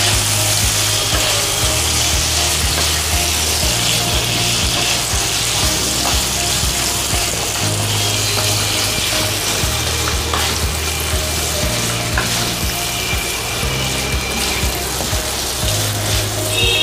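Boiled pork pieces sizzling in oil and soy sauce in a nonstick kadai, stirred and turned with a wooden spatula.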